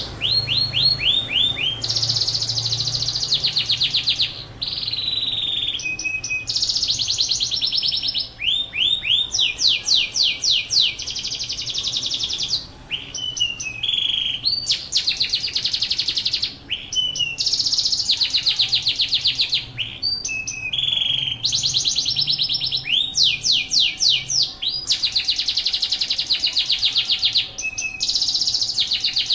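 Yorkshire canary singing: a long, continuous song of fast rolling trills and quickly repeated notes, in phrases of a second or two separated by brief gaps, some phrases made of short downward-sweeping notes.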